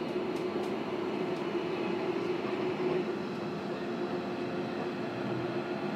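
Interior running noise of a JR Kyushu 305 series electric commuter train, heard inside motor car MoHa 305-5: a steady rumble of wheels on rail under a constant hum. A few light clicks come in the first second or so.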